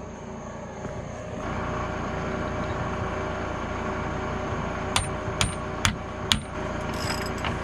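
A steady mechanical hum that comes in abruptly, with four sharp knocks about half a second apart partway through and some brief rustling near the end.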